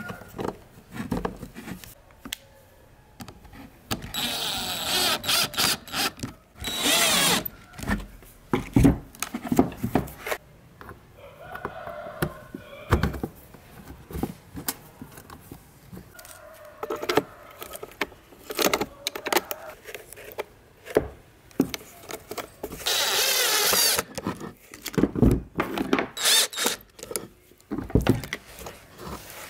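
The plastic base and timer parts of an old electric fan being handled and fitted, giving a string of clicks and knocks of plastic and metal. There are three short bursts of whirring noise, one about four seconds in, one about seven seconds in, and one near the end.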